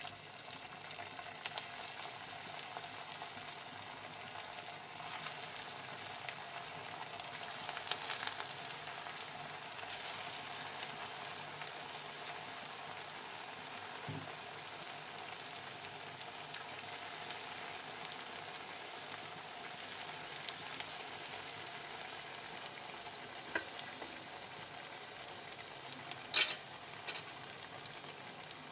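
Potato and sabudana fritters deep-frying in hot ghee in a kadhai: a steady sizzle full of fine crackles, with a few sharper pops near the end.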